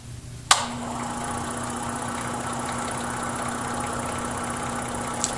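Scroll saw switched on with a sharp click about half a second in, then its motor and reciprocating blade running steadily with a low hum. A brief click near the end.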